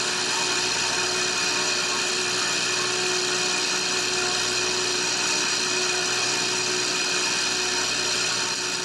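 Electric water pump running steadily, a constant humming and whirring with a steady whine.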